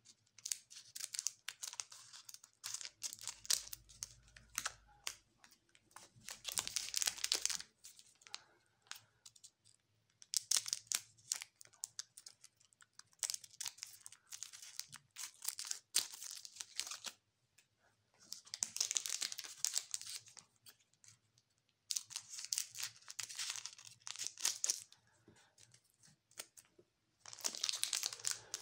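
Scissors cutting through foil Magic: The Gathering booster-pack wrappers, the foil crinkling as the packs are handled, in repeated bursts of crackling with short pauses between.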